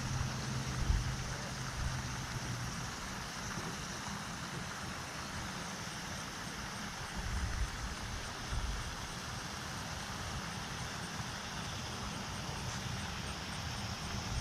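Wind buffeting the microphone in irregular low rumbling gusts over a steady hiss.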